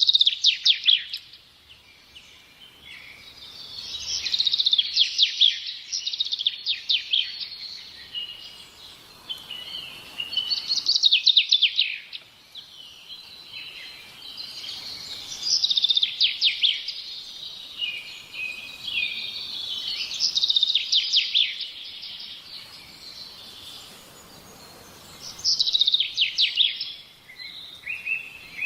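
A songbird singing: bursts of rapid trills and chirps, loudest in phrases that come back every four to five seconds.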